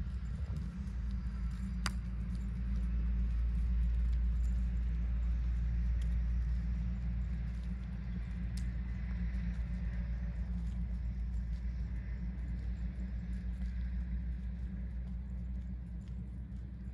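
Steady low wind rumble on the microphone, with faint soft hoofbeats of a horse trotting on a sand arena underneath.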